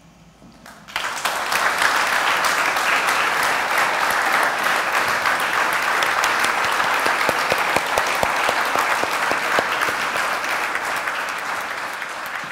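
Audience applauding: dense clapping from many people that starts about a second in and carries on, easing off slightly near the end.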